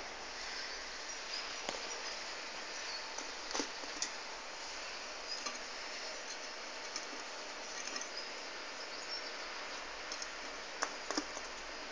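A rabbit drinking beer: faint, irregular little clicks and licks, a few seconds apart, over a steady hiss.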